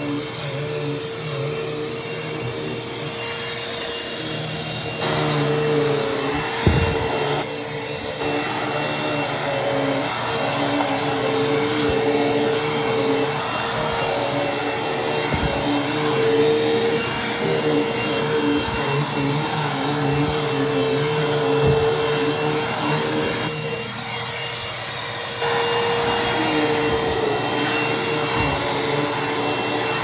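Dirt Devil SD12000 corded hand vacuum running steadily on carpeted stairs: a constant motor whine over suction hiss, shifting a little in level as the nozzle is worked across the carpet. A single knock comes about seven seconds in.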